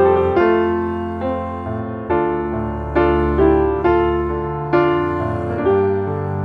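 Background music: slow piano or electric-piano chords, each struck and left to fade.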